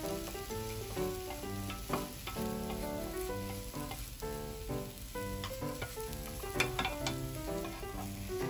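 Beaten egg sizzling as it fries in a square tamagoyaki pan, with a few sharp taps of wooden chopsticks against the pan while the omelette is stirred and folded. A background tune plays over it.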